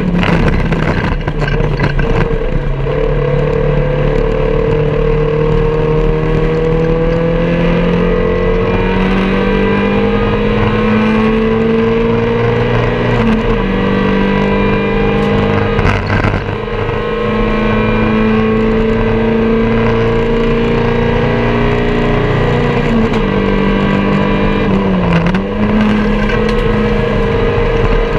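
MG Metro race car's four-cylinder A-series engine heard from inside the cabin, pulling hard with its pitch climbing slowly over long stretches. A few brief dips break the climb where the driver lifts or changes gear.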